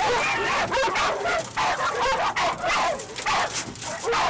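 Several dogs barking and yipping at once, a rapid run of short overlapping barks.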